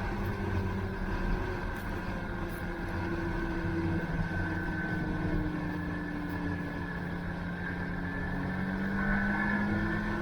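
Snowmobile engine running under way, its pitch easing down a little mid-way and rising again near the end as it speeds up.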